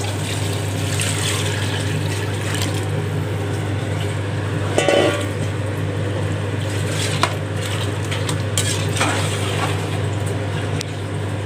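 Water poured into a large aluminium pot of chicken gravy, then a steel ladle stirring it, with scraping and a few clinks against the pot, over a steady low hum.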